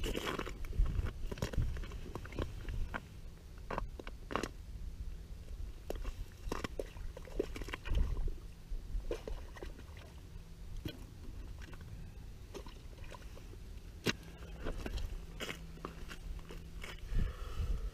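Boots crunching and scraping on lake ice and loose ice chips, with scattered irregular sharp clicks and crunches.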